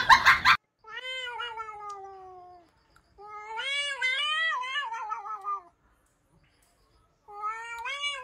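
A cat yowling in three long, drawn-out meows: the first falls in pitch, the second wavers up and down, and the third begins near the end. Before them, a brief loud noisy burst cuts off about half a second in.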